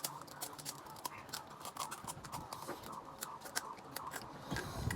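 Faint, scattered crunching and crackling of crisp panipuri shells being bitten and chewed close to the microphone.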